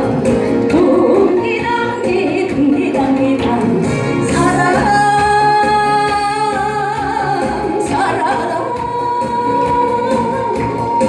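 A woman singing a song over full instrumental backing music, with long held notes from about the middle on.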